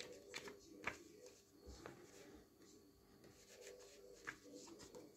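Faint rustling and a few light clicks of glossy paper pages in a CD booklet being leafed through by hand.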